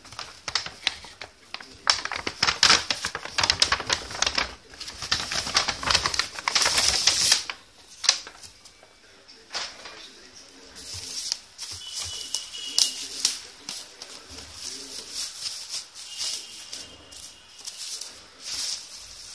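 Plastic carrier bag and bubble wrap crinkling and rustling as they are handled: dense, loud crackling for about the first eight seconds, then quieter, sparser rustling.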